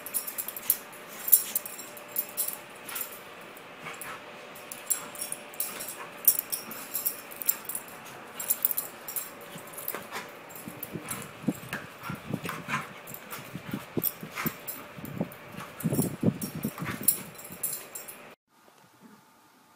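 A large black dog spinning and playing, vocalizing in short bursts that come thickest in the second half, over many sharp clicks and scuffs. The sound cuts off abruptly near the end.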